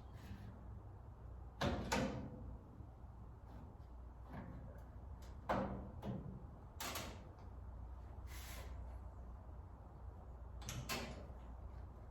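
TIG welder striking a series of short spot welds on sheet steel, each a burst of arc noise lasting under half a second, about eight of them at uneven intervals, over a steady low hum.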